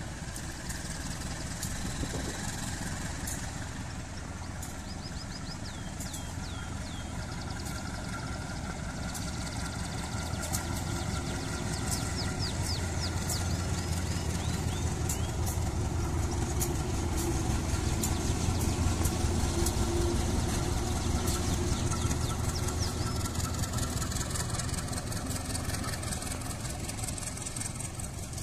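A CC 201 diesel-electric locomotive's engine running as the train pulls out and approaches. Its low hum grows louder and is loudest about two-thirds of the way through.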